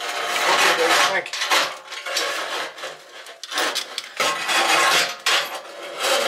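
Irregular clattering and scraping of hard household objects being handled and moved about.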